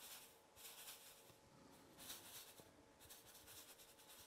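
Faint hiss of medium semolina pouring from a paper packet into a glass bowl, in three short stretches.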